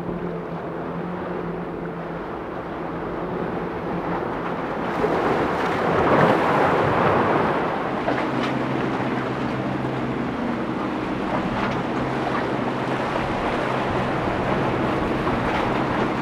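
Boat engines running through rough inlet water, with waves, spray and wind on the microphone; a rush of water swells up about six seconds in, and the engine note drops lower about two seconds later.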